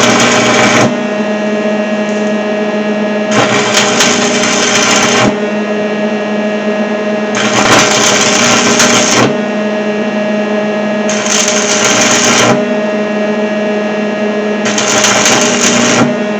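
Lincoln AC arc welder stick welding with a 6013 rod: short spells of sizzling arc crackle, four of them each under two seconds long and a few seconds apart, over the welder's steady hum.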